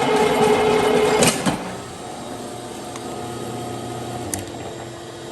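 Concrete floor grinder running wet with a steady motor hum, cut off with a sharp click about a second in. A much quieter steady hum remains, with another short click near the end.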